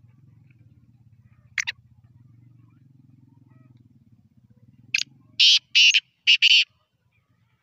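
Male black francolin calling: one short harsh note about one and a half seconds in, then about five seconds in its loud grating call of four or five clipped notes in quick succession.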